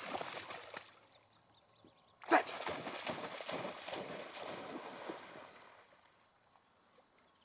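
A yellow Labrador retriever running and bounding through shallow marsh water. A loud splash about two seconds in starts a run of rhythmic splashing strides, which fade as the dog moves off.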